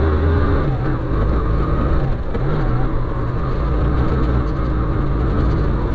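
Motorcycle engine running while the bike climbs a loose dirt track, its pitch rising and falling with the throttle about two seconds in, over a steady low rumble.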